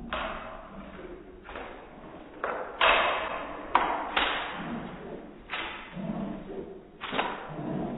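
A bulldog's paws landing heavily on hard stair treads as it makes its way down a staircase step by step: about eight irregular thuds with a short echo after each, the loudest a few seconds in.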